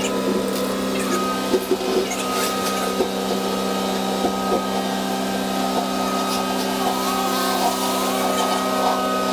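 Tow truck's hydraulic pump and winch running at a steady, even pitch, with scattered clicks and knocks as the car is drawn onto the tray.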